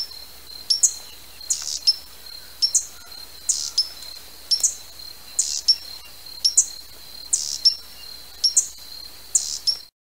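Hummingbird giving sharp, high chip calls, often doubled, repeating about once a second over a thin steady high tone.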